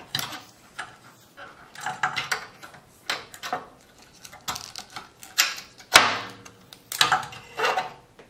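Handling noise from a large can capacitor being worked free of a power supply board and set down on a synthesizer's metal bottom pan: an irregular string of knocks, taps and clatters, the loudest two about six and seven seconds in.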